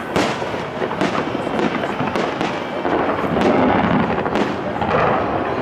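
Fireworks salute: a rapid series of aerial shell bursts, a fraction of a second apart, over dense crackling that swells in the middle.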